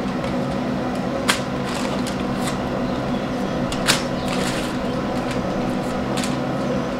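Aluminium foil crinkling and crackling under gloved hands as raw pork ribs are moved on it, with a couple of sharp crackles and softer rustles. A steady hum runs underneath.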